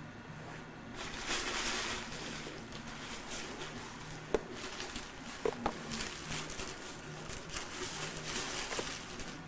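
Thin plastic shopping bag rustling and crinkling as a kitten pushes into and moves under it, loudest about a second in, with a few light clicks and knocks midway.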